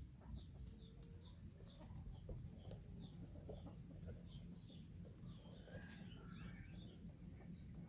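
Chickens clucking faintly, with a run of short high chirps about three a second, and a longer wavering call about six seconds in.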